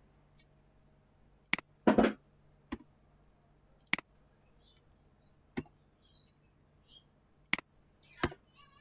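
Computer keyboard keystrokes and mouse clicks: about seven sharp, separate clicks spaced a second or more apart, with a heavier double clack about two seconds in.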